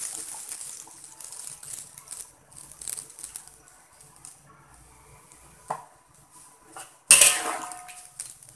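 Thick coconut milk poured into a boiling wok of chicken curry, a quiet splashing and bubbling with small ticks. Near the end a metal spatula clatters and scrapes loudly against the wok for about a second as stirring begins.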